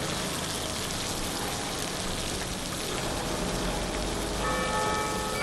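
A steady hiss of falling water. About four seconds in, bells begin ringing, several pitched bell tones sounding together and carrying on.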